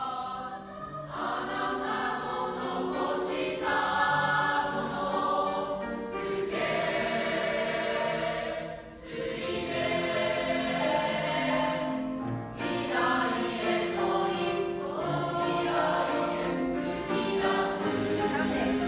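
A choir singing, voices holding long notes that change from phrase to phrase, with a short break about nine seconds in.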